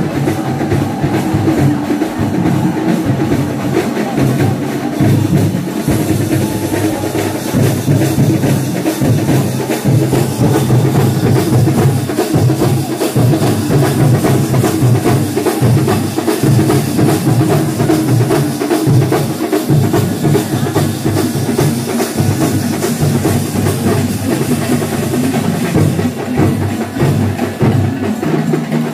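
A festival drum ensemble playing fast, continuous stick drumming at a steady loud level, with no break.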